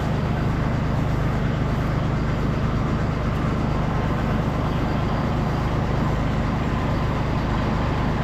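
A motor vehicle's engine running steadily, a constant low hum with road-like noise and no change in pace.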